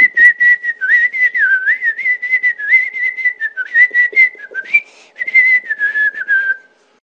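A whistled tune: a single high line of melody wavering up and down, over quick, regular clicking, that stops shortly before the end.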